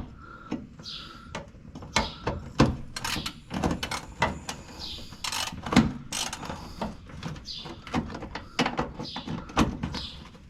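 Irregular knocks and clicks of parts and hand tools as a car's lower valance is clipped and bolted into place, with a bird chirping now and then in the background.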